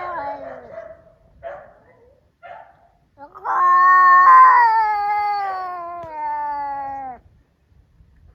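Domestic cat yowling in a fight standoff: a few short rough noises in the first three seconds, then one long, loud yowl starting about three and a half seconds in that slides down in pitch before it stops.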